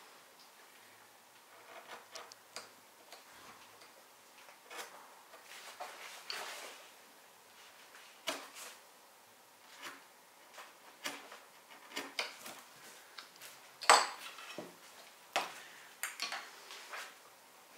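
Hand carving knife cutting and shaving wood: irregular short slicing cuts and scrapes, with one sharper, louder snap about three-quarters of the way through.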